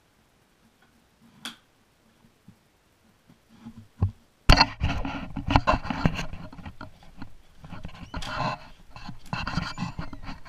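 Handling noise of a camera being grabbed and carried: a sharp knock about halfway through, then a run of irregular knocks, bumps and rustling against the microphone. Before that, only a few faint clicks.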